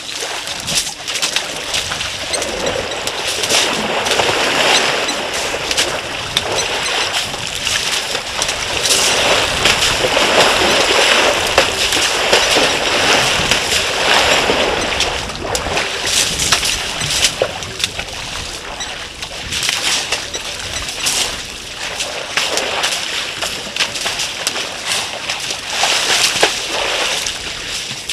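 African elephants, adults and calves, wading and splashing in shallow muddy water, a steady rising and falling slosh with many small splashes. Birds call in the background.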